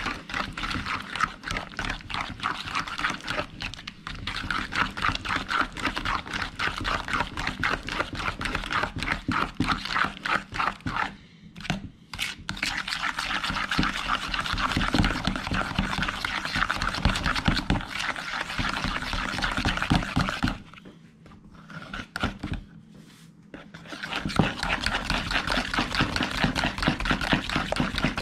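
Fork beating cream cheese and maple syrup into frosting in a mixing bowl, in rapid, even strokes against the bowl. It stops briefly a little before halfway and again for a few seconds about three-quarters through.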